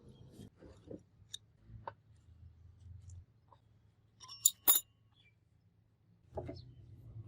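Light metal clinks and taps, with two sharp ringing strikes in quick succession about halfway through.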